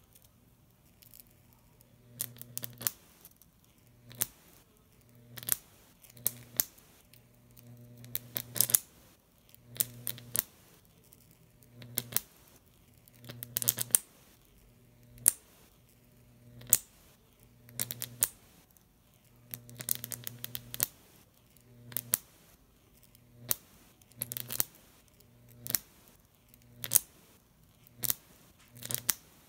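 Homemade Jacob's ladder, driven by a MOSFET high-voltage driver: the arc between two copper wires buzzes and crackles. It starts at the gap, climbs the wires, breaks and starts again, giving a sharp crackling burst about every second or so over a low buzz that comes and goes.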